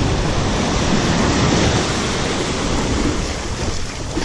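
Ocean surf breaking and washing up over the sand: a steady rush of water noise that eases slightly near the end.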